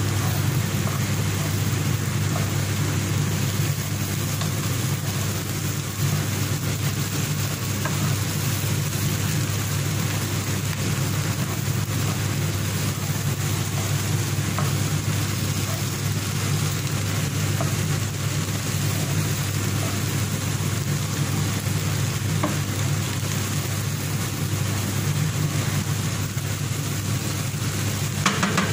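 Steady low hum with an even hiss, and faint scraping ticks of a wooden spatula stirring a thick, crumbly kibbeh mixture in a pot.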